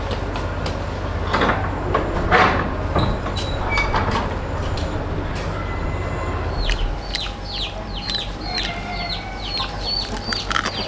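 Chickens clucking. From about seven seconds in comes a quick run of short high calls, each falling in pitch, about three a second.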